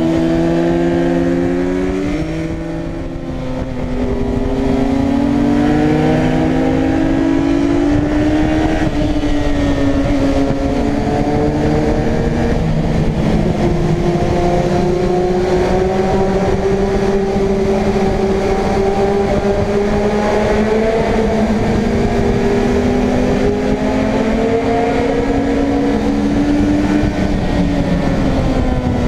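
Suzuki Bandit 600 N's inline-four engine running under way, its pitch rising and falling with throttle and gear changes. The revs and level drop briefly about two seconds in, then climb and hold.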